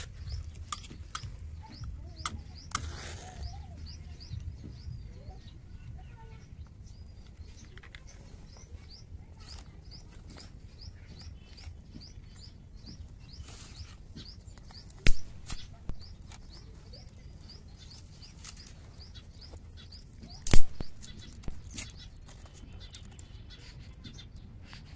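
Small birds chirping over and over, with scattered light crackles from a burning twig fire and two loud sharp cracks, one about halfway through and a louder one later.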